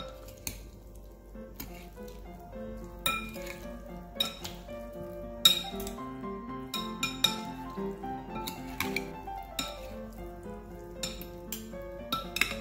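Metal spoons clinking irregularly against a glass bowl as a diced beet and corn salad is tossed, over background music.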